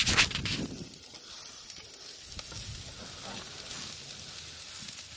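Burger patties and chicken sizzling on a charcoal barrel grill's grate over live flame, a steady hiss. A brief louder rustling noise in the first second.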